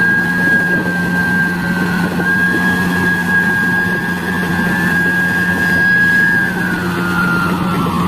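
Hyundai Robex 80-7 excavator's diesel engine running steadily, with a steady high whine over it that dips slightly near the end.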